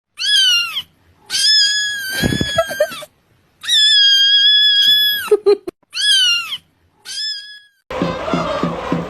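A cat meowing five times in high, drawn-out calls: the second and third are long and held, the last is short. Near the end, music with a chanting crowd starts.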